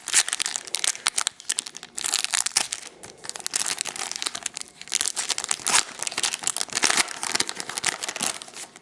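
Crinkling and tearing of a trading-card pack's foil wrapper being opened by hand, a dense, irregular crackle that keeps going throughout.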